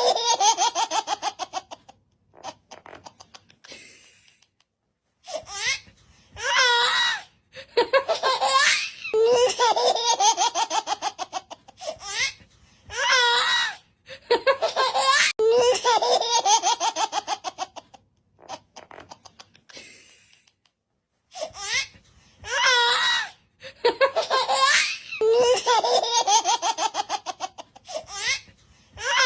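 A young child laughing hard in repeated fits of high-pitched giggles, each lasting a second or few, with short breaths and pauses between.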